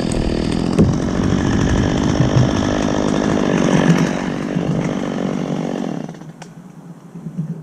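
Chainsaw running at high speed, then dropping back to a quiet idle about six seconds in.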